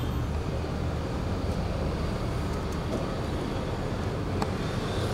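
Steady background hum and hiss with no speech, a low droning noise like a room's air conditioning or fan, with a faint click about four and a half seconds in.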